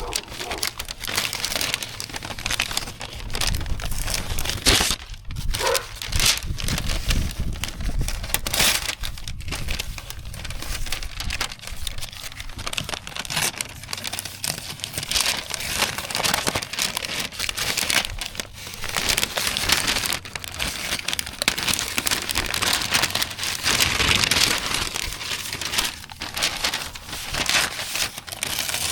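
Ongoing crinkling and crumpling with many small crackles, uneven in loudness, from material being handled and balled up during cleanup.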